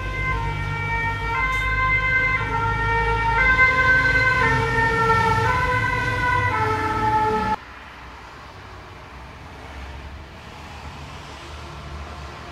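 Two-tone 'pin-pon' sirens of French fire and rescue vehicles sounding close by over a heavy engine rumble, the notes stepping back and forth and sliding lower as they pass. About seven and a half seconds in it cuts off suddenly to a much quieter low traffic rumble.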